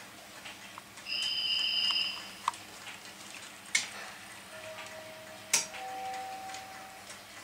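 Model railway layout sounds: a steady high whistle-like tone lasting about a second, three sharp clicks, then overlapping lower steady tones for about two seconds near the end.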